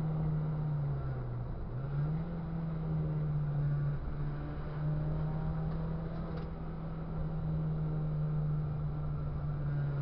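Ford Fiesta Cup race car's engine heard from on board, running steadily at high revs under a haze of road and wind noise. About a second in the engine note sags, then climbs back up near two seconds and holds steady to the end.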